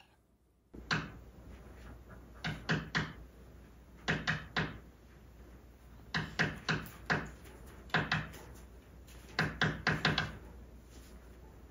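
A series of sharp knocks and thuds, coming in quick runs of two to four about every second and a half.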